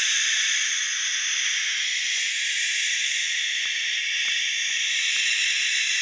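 Several young barn owl chicks hissing together, a steady unbroken hiss, with a few faint clicks about halfway through.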